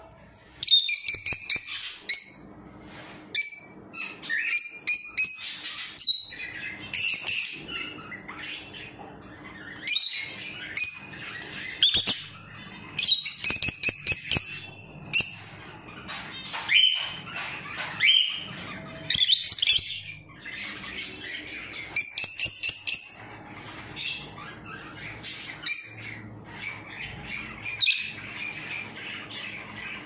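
Rosy-faced lovebird calling: repeated bursts of rapid, high-pitched chattering squawks, a new burst every second or two.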